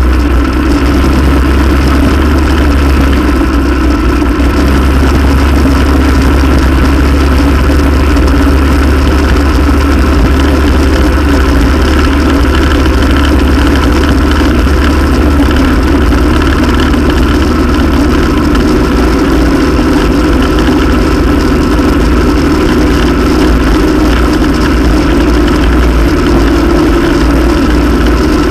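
ATV engine running steadily at an even throttle, heard close up from a camera on the machine's front rack, with a slight rise in pitch near the end.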